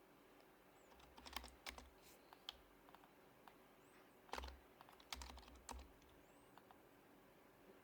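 Typing on an HHKB Professional HYBRID Type-S keyboard: soft keystrokes from its silenced Topre switches, in two short bursts about a second in and again after about four seconds.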